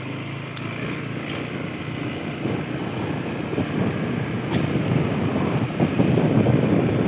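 Motorcycle engine and road noise as the bike moves off along a dirt track, growing louder as it gathers speed.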